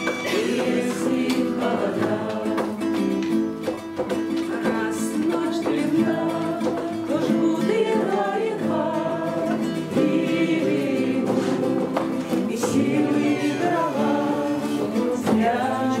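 A group of voices singing a song together, accompanied by an acoustic guitar.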